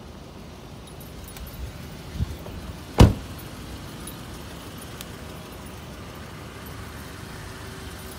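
A 2006 Lexus LS sedan's door shut once with a single solid thump about three seconds in, after a smaller knock, with a few faint clicks of handling noise over a steady low background.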